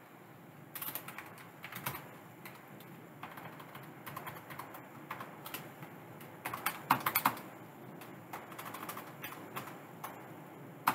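Typing on a computer keyboard in short bursts of keystrokes with pauses between, the loudest run a little past halfway.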